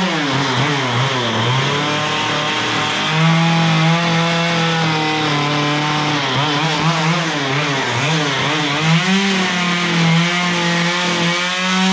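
Stihl chainsaw cutting into a wood log. The engine pitch dips and rises again and again as the chain bites and is eased off, settling higher and steadier near the end.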